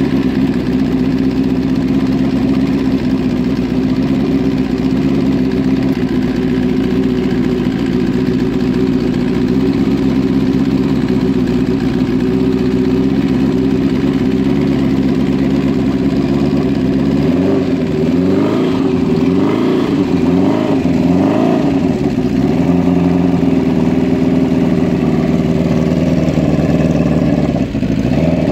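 Kawasaki GPZ900's 908 cc DOHC 16-valve inline-four engine idling steadily. Partway through it is blipped through about four quick revs, then settles back to idle.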